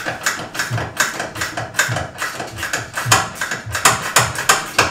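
Rapid, uneven run of metallic clicks and clanks, several a second, with a few dull knocks among them: hand-tool work on metal in a van's engine bay.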